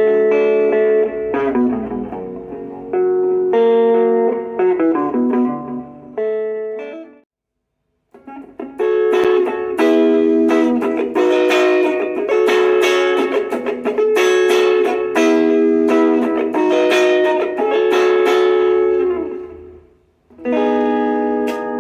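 Stratocaster electric guitar played through a Marshall MS-4 mini amplifier: phrases of chords and single notes, with a brief silent gap about seven seconds in and notes ringing out and fading near the end before playing starts again.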